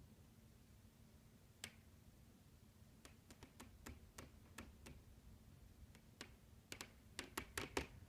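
Sharp pops and ticks from the house's bedroom walls and ceiling as the wind blows: a single pop about a second and a half in, then a run of irregular clicks from about three seconds, coming faster and louder near the end.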